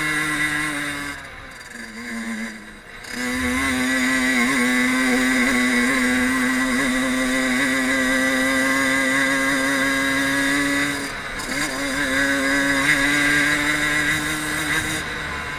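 Fantic 50 Caballero Regolarità's two-stroke 50 cc engine running under way on a dirt trail. It drops off twice as the throttle eases, about a second in and again around eleven seconds, and otherwise holds a steady pitch.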